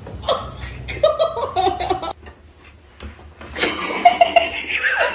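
A person laughing in two fits of short, choppy bursts, the second louder and breathier.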